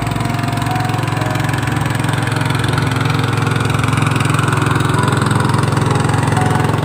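A small engine running steadily, getting a little louder about halfway through.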